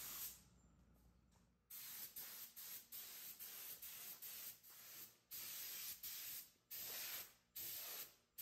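DeVilbiss GPG gravity-feed paint spray gun spraying enamel in a dozen or so short bursts of hiss, each under a second long, with a quiet gap of about a second near the start.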